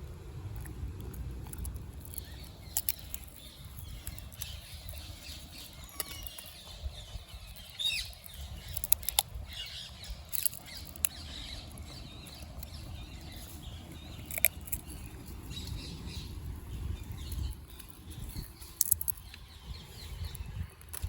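Outdoor ambience: a steady low rumble with scattered sharp clicks and faint, high, brief chirps.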